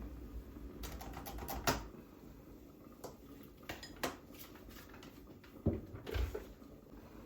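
Light clicks, taps and clinks of small household items being handled, with a sharper knock about a second and a half in and two more near the end. A low hum underneath stops about two seconds in.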